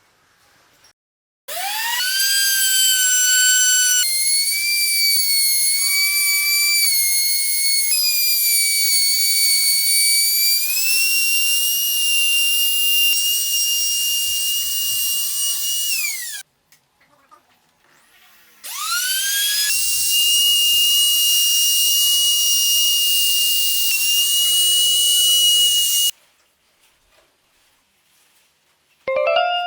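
High-speed electric power tool motor spinning up with a rising whine and running for about fifteen seconds, its pitch shifting in small steps as it works, then winding down. It spins up again for about seven more seconds and stops.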